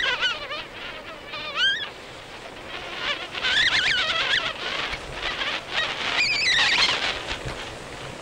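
Bicycle brakes squealing in several separate bouts of about a second each, high-pitched with a wavering pitch, over a steady rush of wind and tyres on a dirt track.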